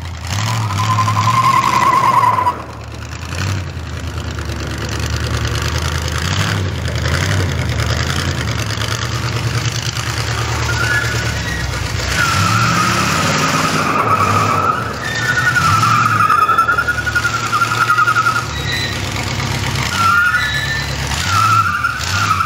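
Demolition derby car engine running, with a short high squeal about half a second in and long, wavering high squeals through the second half.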